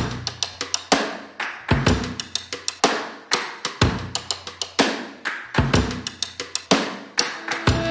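Background music: a drum kit playing a steady beat of kick, snare and cymbal hits.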